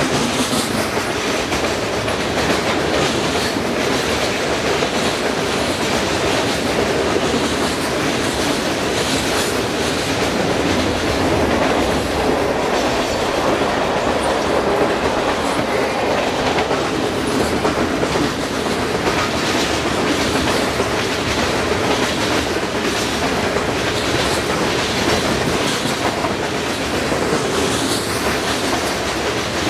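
Freight cars of a long mixed train rolling steadily past: steel wheels rumbling and clicking on the rails, with a faint squeal now and then.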